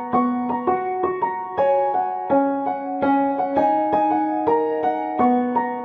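Background music: a gentle piano melody of single struck notes over sustained chords.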